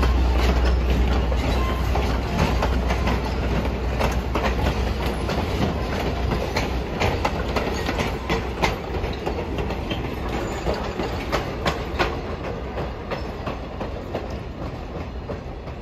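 Passenger train coaches rolling past at low speed, their wheels clicking over the rail joints in an uneven clickety-clack over a steady rolling rumble. A deep low rumble at the start fades away after a few seconds, and the whole sound slowly dies down toward the end.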